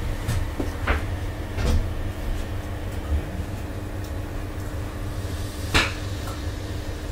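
Steady low hum of a standing railcar interior, with a handful of short knocks and clicks scattered over it; the loudest knock comes near the end.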